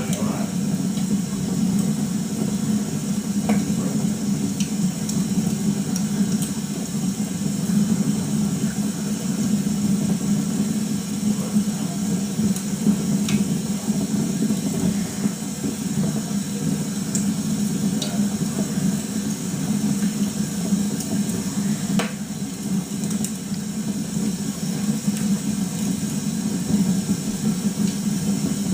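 Log fire burning, heard through a television speaker: a steady low rushing hiss with a few faint pops and crackles.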